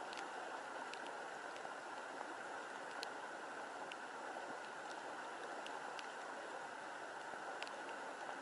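Steady rushing of flowing water, with a few faint sharp ticks scattered through it.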